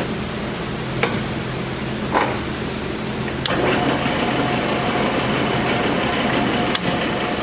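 Keiyo Seiki KM-1800C engine lathe running with a steady hum, with a few sharp clicks. About three and a half seconds in, a click is followed by louder running with a higher whine added.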